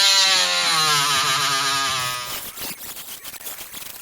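Oscillating multi-tool cutting into wood set in a brick wall: a loud buzz whose pitch wavers as the blade bites, easing off after about two seconds and stopping at the very end.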